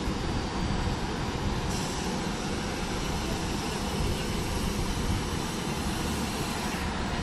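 Steady rumble and hiss of a regional train at the platform, an E464 electric locomotive with UIC-X coaches, with a brighter high hiss from about two seconds in until near the end.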